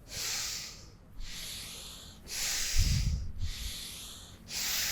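Forceful nasal breaths of bhastrika pranayama: rapid inhales and exhales alternating, about one a second, five in all, stronger and weaker in turn. A low thud comes under the middle breath.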